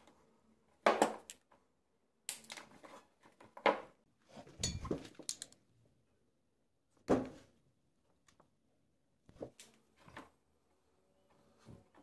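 Side-cutting pliers and a wire stripper cutting and stripping the insulation off an extension cord's wires: a string of separate snips, clicks and knocks of the hand tools, the loudest about a second in and around the middle.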